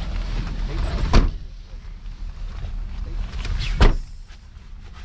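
Car doors of a taxi thudding shut twice, about a second in and again near four seconds, over the low steady rumble of the idling car.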